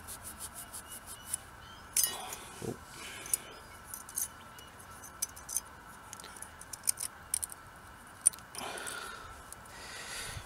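Scotch pad scrubbing old brake dust and copper grease off metal brake caliper parts in quick, short strokes, with a few sharp clicks between them.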